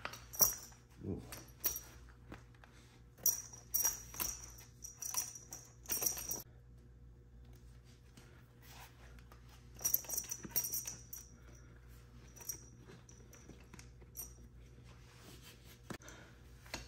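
Metal buckles and fittings on a tree-climbing spur's straps clinking and jingling in short bursts as the spur is strapped onto the leg, with a second flurry of clinks about ten seconds in.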